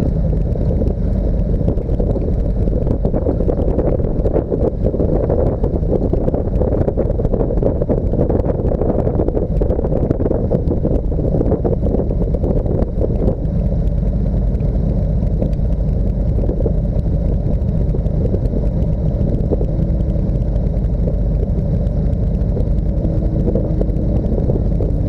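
Steady, loud, low engine rumble of a motor vehicle under way, holding an even level throughout with no revving or pauses.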